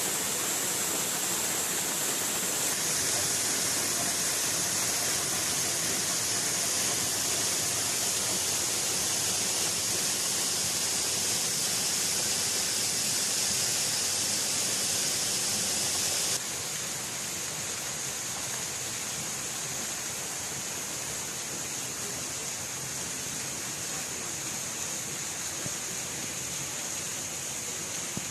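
Waterfall: a steady rush of falling water. Its level drops suddenly about two-thirds of the way through.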